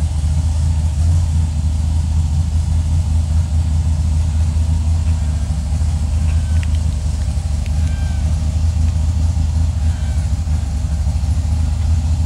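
Superior Engineering race buggy's engine running steadily at low revs, a deep, even drone, as it crawls slowly up a steep dirt climb.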